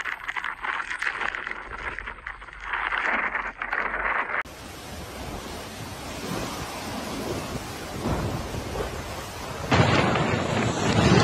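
Storm wind and rain, with gusts buffeting the microphone. The sound changes abruptly about four seconds in, and near the end turns into a louder, deeper rush of wind.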